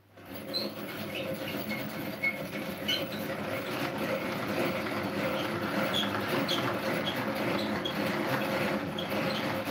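Hand-cranked rotary egg beater turning in a bowl: its gears and whisks make a steady, fast clicking clatter that starts abruptly at the beginning.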